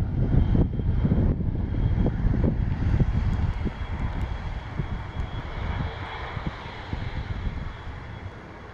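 An aircraft's engines running, with a steady high whine and a swell partway through, heard under heavy gusty rumble from high wind on the microphone. The sound fades toward the end.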